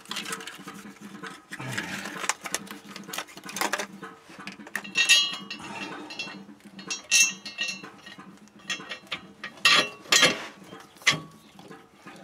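Steel bolts clinking and tapping against the exhaust flanges as they are fitted by hand, with several sharp metallic clinks that ring briefly.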